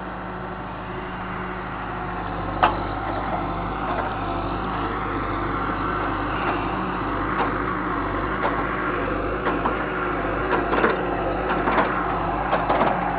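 John Deere 160C excavator's diesel engine running steadily, with metal knocks over it: one sharp clank about two and a half seconds in and a run of lighter knocks in the second half.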